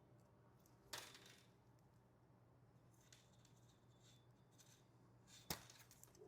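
Mostly near silence, with a faint snip of scissors cutting a plastic light-track diffuser about a second in, some faint small ticks, and a sharp click near the end.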